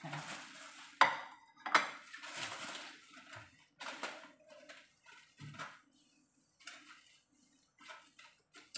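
Two sharp clinks of a plate set down on a kitchen counter about a second in, then aluminium foil crinkling in short bursts as it is crumpled and folded by hand.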